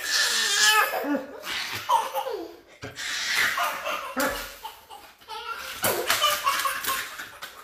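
A toddler laughing hard, belly laughs in repeated bursts.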